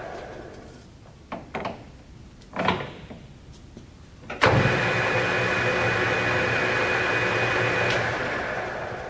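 Harrison M300 engine lathe with a geared headstock. The spindle coasts down to a stop, there are a few clicks and clunks from the controls, and then the spindle starts with a clunk about four and a half seconds in. It runs with a steady gear whine and begins to wind down again about eight seconds in.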